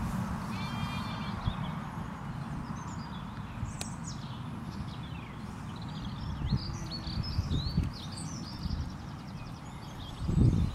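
Small birds chirping, with a run of short calls a few seconds in, over a steady low outdoor rumble; a couple of low thumps near the end.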